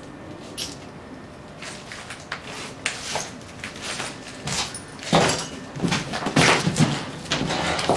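Footsteps and knocks of people walking into a derelict room: irregular clicks, knocks and scrapes, growing louder and busier about five seconds in.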